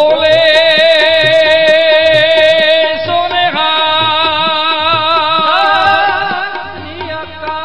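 A man's voice holding long sung notes with a wide vibrato in a Sikh devotional song, changing pitch about three seconds in and again near six seconds. A steady drone and light, regular drum strokes run beneath it.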